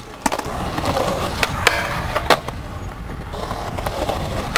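Skateboard wheels rolling on a concrete skatepark surface, a steady rumble, with a few sharp clacks scattered through it.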